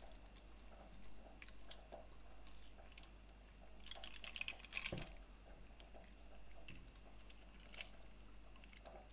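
Faint small clicks and light metal taps from the metal parts of a model robot arm being handled and fitted with a washer, with a quick cluster of clicks about four to five seconds in.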